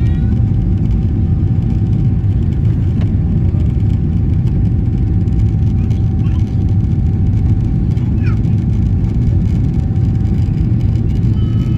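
Steady loud rumble of a Ryanair Boeing 737's jet engines and rushing air, heard inside the cabin during the take-off climb, with a thin steady whine above it.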